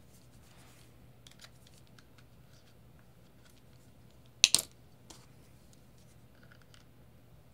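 Faint small ticks and scrapes of fingers handling an acrylic case and circuit board and working a nut on its mounting screw, with a sharp double click about four and a half seconds in.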